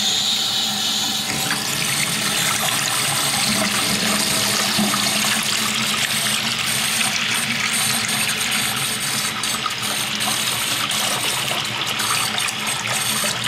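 Water running steadily and hard from an opened tap, flushing the line through a newly fitted whole-house filter to check for rust and sediment; the sound changes slightly about a second in.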